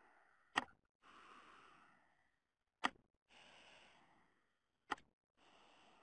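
Near silence with faint hiss, broken by three short sharp clicks about two seconds apart.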